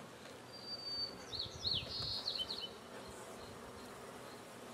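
Faint buzzing of honey bees around a nucleus colony as its frames are moved into a hive. From about half a second to three seconds in, a bird whistles a high held note followed by several quick looping notes.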